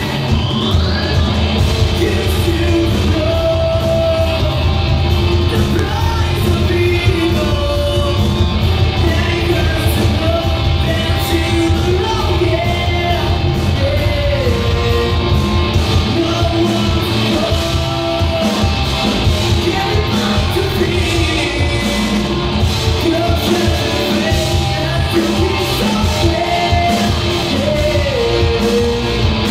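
Live rock band playing loudly: electric guitars, bass guitar, drums and keyboard, with a singer's voice over the band.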